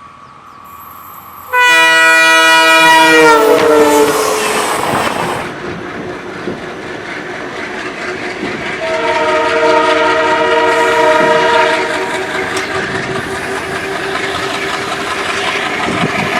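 Diesel locomotive's multi-tone air horn sounding as the train passes: a loud chord about two seconds in whose pitch drops as it goes by, then the rumble and clatter of the passing train, with a second long horn chord about nine seconds in.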